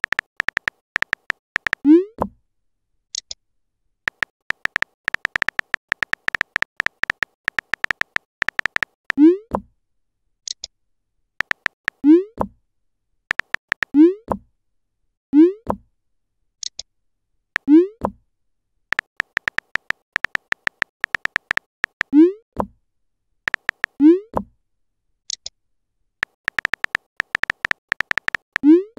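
Chat-app sound effects: fast runs of phone-keyboard key clicks, each run ended by a short rising 'bloop' as a message is sent, nine bloops in all, with a brief high chirp now and then.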